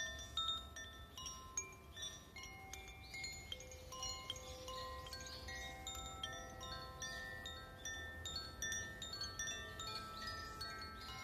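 Metal chimes ringing: many clear notes at different pitches struck irregularly, several times a second, each ringing on and overlapping the next in a continuous wash of tones.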